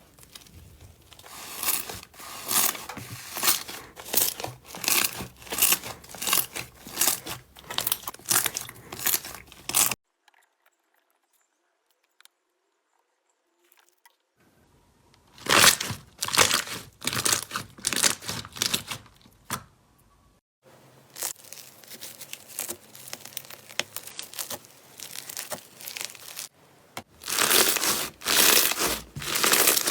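Slime being pressed and squeezed by hand, a run of crackling, crinkly squishes about one to two a second. It stops for about four seconds of silence about a third of the way in, then carries on.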